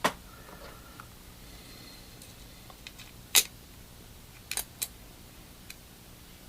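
A few sharp plastic clicks and taps from the opened Galaxy S3's parts being pressed and snapped into place. The loudest comes about three and a half seconds in, followed by a quick pair.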